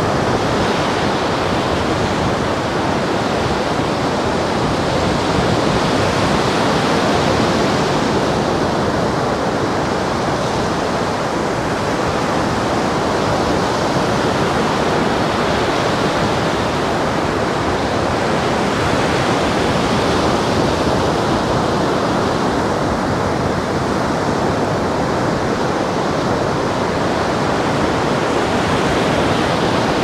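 Sea surf breaking and washing up a sandy beach: a steady, continuous rush.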